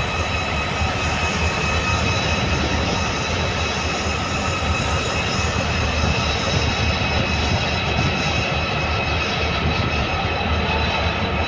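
Diesel locomotive and its train rolling slowly past: a steady low rumble of engine and wheels, with a constant high whine over it.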